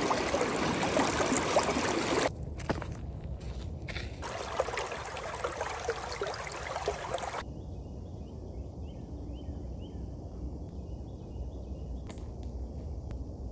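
Stream water rushing and splashing over rocks. It drops in level about two seconds in and falls away about seven seconds in, leaving a low rumble with faint high chirping.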